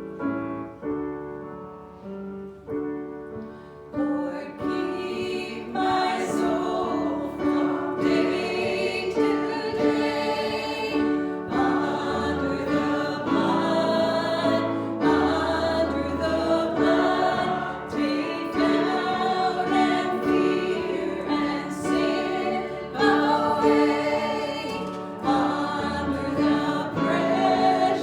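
Piano playing alone for the first few seconds, then a church congregation joins in singing a worship song with the piano accompanying.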